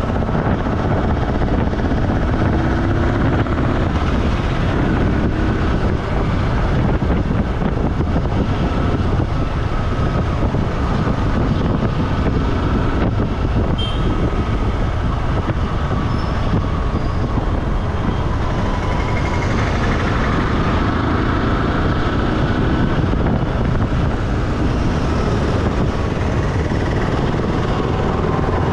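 Steady running noise of a vehicle travelling along a road: engine and road noise with a faint wavering pitch and no breaks.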